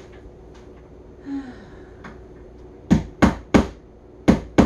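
Hammer blows on a peg being driven into a particleboard furniture panel: three sharp knocks in quick succession about three seconds in, then two more near the end. The peg is not going in.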